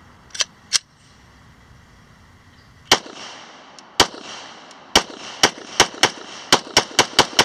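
Semi-automatic pistol shots: two quick cracks near the start, then after a pause about ten shots, a second apart at first and then coming faster, each trailing a short echo.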